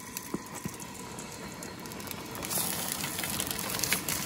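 A bratwurst sizzling in a hot frying pan on a camp stove, over the steady hiss of the burners and a steaming pot. The sizzling grows louder about two and a half seconds in.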